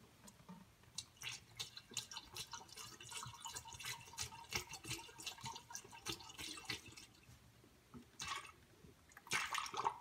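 Coolant pouring from a plastic jug through a funnel into an engine's coolant crossover, heard as faint, irregular splashing, with a louder burst near the end. The system is being filled at a high point so trapped air can escape.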